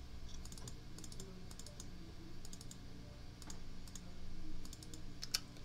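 Computer keyboard keys being pressed in scattered, irregular taps, a few in quick clusters.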